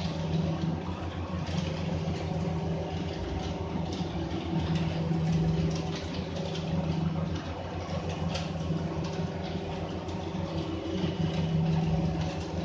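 An engine idling steadily with a fast, even low throb, and a few light clinks of hand tools on metal.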